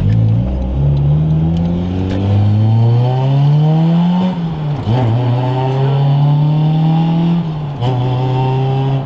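Integra GSR's four-cylinder engine accelerating hard through the gears. The pitch climbs, falls sharply at an upshift about halfway through, climbs again, and falls at a second upshift near the end.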